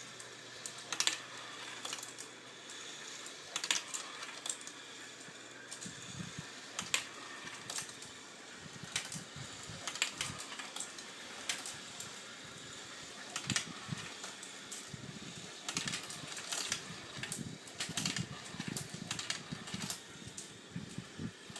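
Marbles clicking and clattering along a homemade battery-powered marble run at irregular intervals, over the steady hum of its small electric motor.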